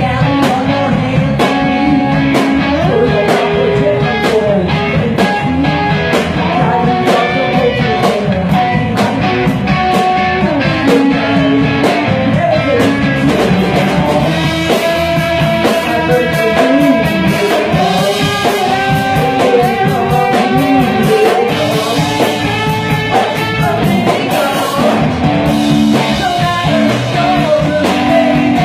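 Live rock band playing: electric guitars and a drum kit, with a male lead singer singing into the microphone.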